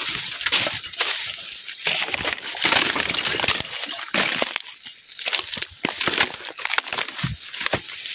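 Dense leaves and stems rustling and crackling against the camera as someone pushes through a bamboo thicket, in irregular bursts of brushing and snapping.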